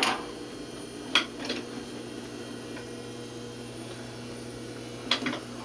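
Steady low hum of a sewing machine at rest, with a few short rustles and knocks as a cloth cap is handled and set under the presser foot, about a second in and again near the end.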